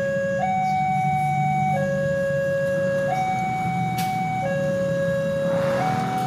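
Railway level-crossing warning alarm sounding as a two-tone signal, alternating between a higher and a lower steady tone about every second and a half, the warning that a train is approaching the crossing. Beneath it runs the low rumble of road traffic, with a swell of noise near the end.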